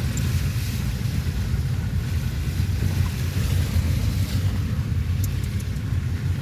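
Steady low rumbling noise throughout, with no clear rhythm or pitch.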